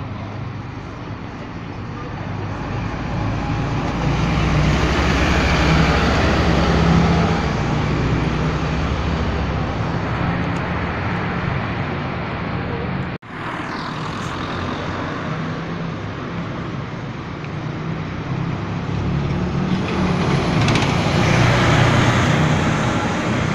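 Street traffic with single-deck buses' diesel engines running as they pull past, with tyre and road noise. It swells twice, once early and again near the end as a bus passes close, with a brief break about halfway through.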